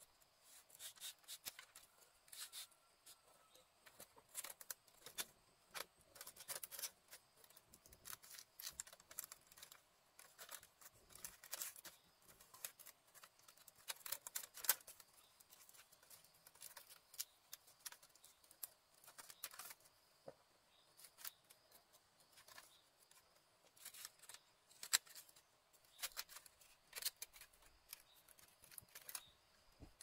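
Irregular sharp clicks and snips, a few a second, with soft rustling between: small hand work close to the microphone.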